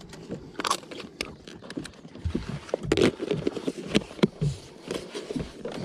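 Hard plastic handling: a plastic tub of small scent jars being moved and a snap-on plastic container lid pressed shut, giving an irregular string of sharp clicks and knocks with scraping between them.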